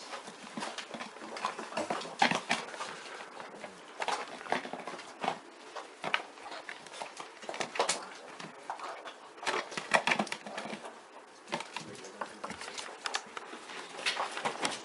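Irregular knocks, clicks and scuffles of Magyar vizsla dogs playing, a puppy nosing a plastic tub around on a rug.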